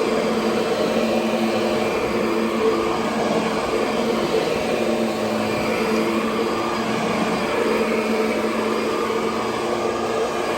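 Kirby Sentria 2 upright vacuum cleaner running steadily while vacuuming, a constant motor hum with fixed tones over the rush of air.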